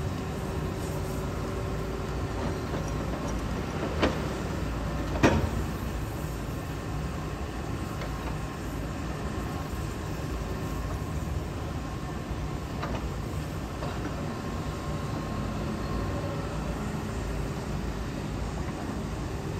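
Steady diesel engine rumble of a Hitachi ZAXIS 210K hydraulic excavator, with two sharp metallic clanks about four and five seconds in and a fainter knock later on.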